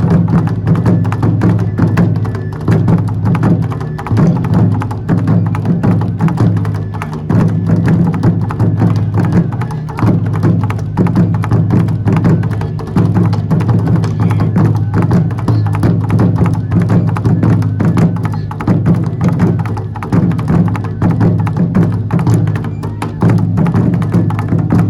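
Music with dense, rapid percussion strikes over steady low tones, continuing without a break.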